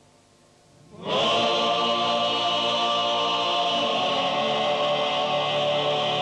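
Sardinian male choir singing, coming in together about a second in after a near-silent pause and holding one loud sustained chord.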